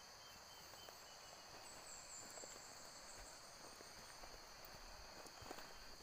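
Faint insect chorus, a steady high-pitched buzz, with soft scattered crunches of footsteps on dry bamboo leaves.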